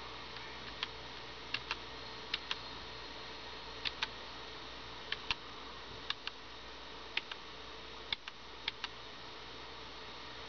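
Computer keyboard keys clicking, mostly in quick pairs every second or so, as each fsck 'Fix?' prompt is answered yes while repairing a corrupted Linux filesystem. A faint steady hum runs underneath.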